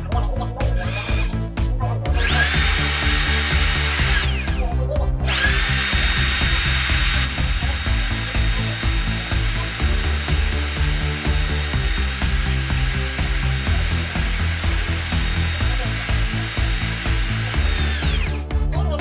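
Electric power tool motor, such as a drill, whining at high speed over background music. It spins up about two seconds in, winds down briefly near four seconds, starts again a second later and runs steadily before winding down near the end.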